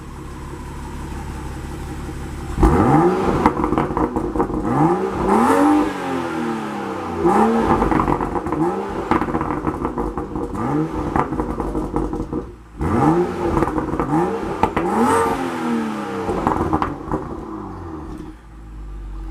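BMW M235i's turbocharged 3.0-litre inline-six, picked up at the stock intake airbox, idling and then revved in a series of quick blips about once a second, with a brief pause partway through.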